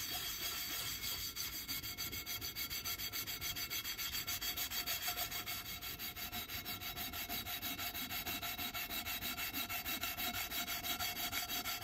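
Rapid, regular back-and-forth scrubbing of a frying pan with a cleaning paste, several strokes a second, working burnt-on grease stains off the pan's enamel.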